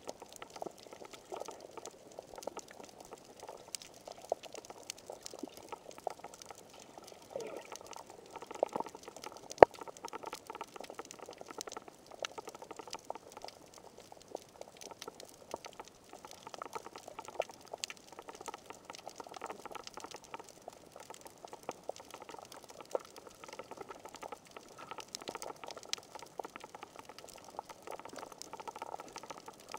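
Underwater sound picked up through a GoPro's waterproof housing: a steady, muffled crackle of many tiny clicks and bubbling water, with one sharp click about ten seconds in.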